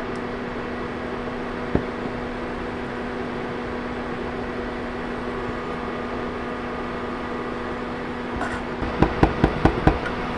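A steady hum runs throughout, with a single click about two seconds in. Near the end come about five quick, sharp taps of a wire whisk against a stainless-steel saucepan.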